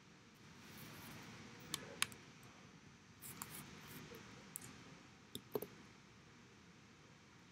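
Puppies stirring in a playroom: faint rustling with a handful of short, sharp clicks, the loudest about two seconds in and again around five and a half seconds in.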